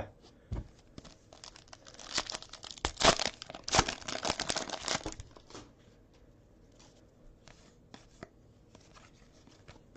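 A foil trading-card pack being torn open, with crinkling and tearing of the wrapper loudest around the middle, then a few faint handling clicks.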